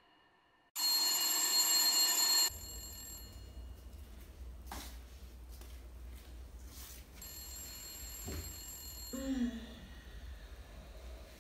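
Landline desk telephone ringing: one ring about a second and a half long, then a low steady hum.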